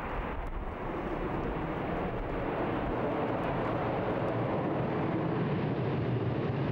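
C-130J Hercules turboprop engines running as the aircraft rolls toward the listener: a steady drone with a low hum, growing slightly louder.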